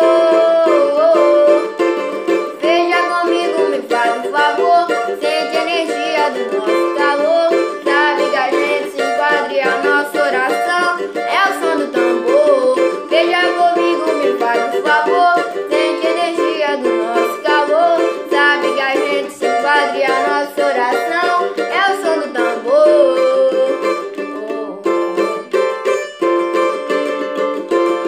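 Pagode song with a sung vocal melody, accompanied by a strummed acoustic string instrument playing steady chords.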